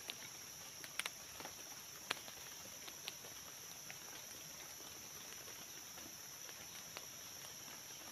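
Thin sticks being handled and pushed into dry leaf litter: a few sharp snaps and taps, mostly in the first three seconds. Underneath runs a steady high-pitched buzz of forest insects.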